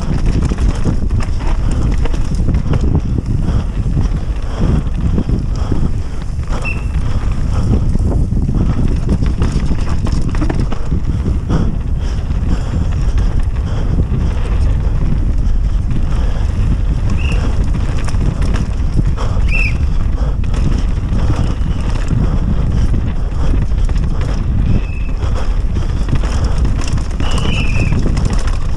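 Downhill mountain bike ridden fast over a rough dirt forest trail: a constant rumble of wind on the microphone and tyres on dirt, with frequent rattling knocks from the bike over bumps and roots and a few brief high squeaks.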